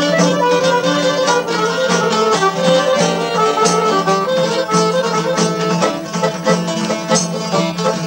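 Albanian folk ensemble playing an instrumental passage: accordion with plucked long-necked lutes (çifteli and sharki) and a hand-struck frame drum keeping a steady beat.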